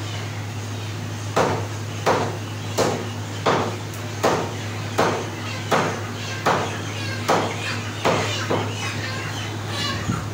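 Regular chopping strikes of a cleaver on a wooden chopping block, about ten blows at roughly one every 0.7 seconds. They start a second or so in and stop near the end, over a steady low hum.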